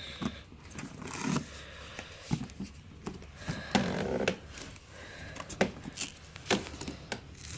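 Hands opening a headset's retail packaging: scattered clicks, taps and scraping of the box and its contents, with a longer rustling scrape about four seconds in.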